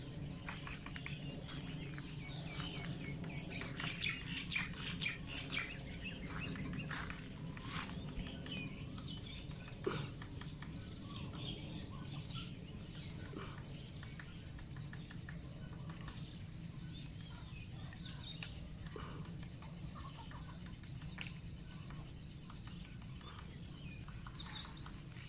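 Woodpeckers tapping on tree wood: irregular sharp knocks, one louder knock about ten seconds in, mixed with short chirping bird calls.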